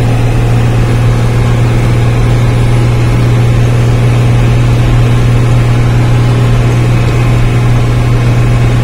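Mercedes-Benz 1114 truck's OM 366 inline-six diesel engine running steadily under load, pulling in fifth gear at about 1,500 rpm, heard from inside the cab as a constant drone.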